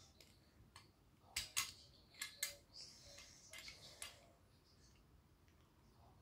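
Faint clicks and light knocks of a 1976 toy USS Enterprise's plastic parts being handled and fitted together, a cluster of them between about one and four seconds in.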